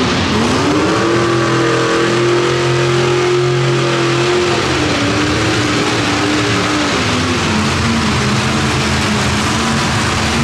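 Pro Stock mini pulling truck's engine revving up hard under load as it pulls the sled. The pitch rises in the first second, holds high, then drops a step about halfway through and again around seven seconds in.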